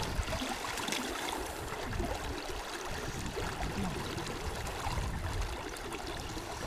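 Steady rush of a shallow river around a wading angler, with small splashes as his hand works in the water beside a hooked salmon.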